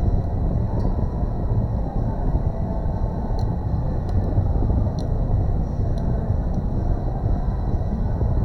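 Steady low rumbling noise with a few faint, sharp clicks scattered through it.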